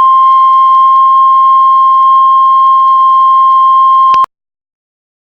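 Heart monitor flatline: one steady, high electronic beep held for about four seconds, then cutting off suddenly. The unbroken tone is the sign that the heart has stopped.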